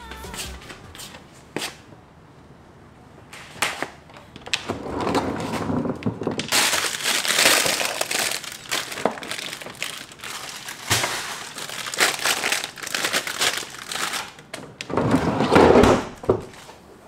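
Plastic produce bags rustling and crinkling as vegetables are handled in a refrigerator vegetable drawer, with a few sharp clicks and knocks in between and a louder rustle near the end.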